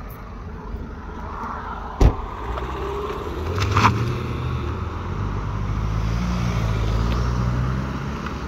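A car door shuts with a loud thud about two seconds in, followed by a lesser knock. Then the car's engine runs and pulls away, its low hum rising and falling as it gathers speed.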